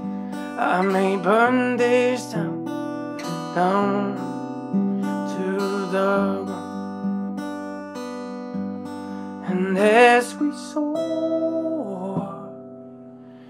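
Acoustic guitar playing chords under a man's singing voice, which comes in several short phrases. The playing gets quieter near the end, with the guitar ringing on alone.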